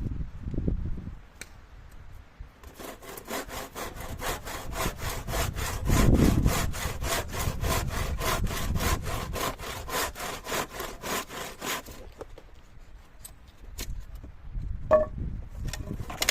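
Hand saw cutting through wood in quick, even strokes, about four a second. It starts about three seconds in and stops about four seconds before the end, over low wind rumble on the microphone.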